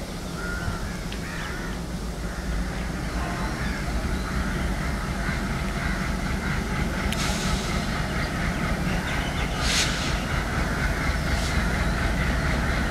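WDM-3D diesel-electric locomotive's engine running as it approaches hauling a passenger train, its low, steady note growing louder. Crows caw near the start, and two short hisses come about halfway through.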